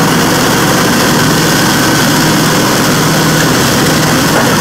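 Dixie Chopper zero-turn mower running loud and steady while it pushes and chops up a pile of dry leaves.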